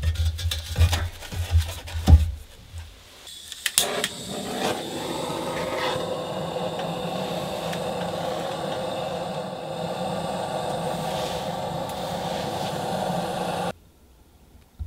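Irregular knocks and scraping for a few seconds, then a motor running steadily that cuts off suddenly near the end.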